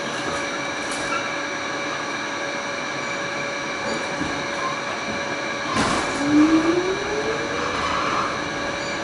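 Pullman-Standard R46 subway car running on its line, heard from inside: a steady hum of several constant tones over rolling noise. About six seconds in there is a sharp loud knock, followed by a whine that rises in pitch for about two seconds.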